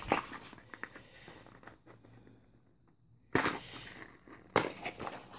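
Small cardboard box being opened by hand: light scrapes and taps, then two sharp cardboard snaps as the tuck flap is pulled free, one about three and a half seconds in and another about a second later.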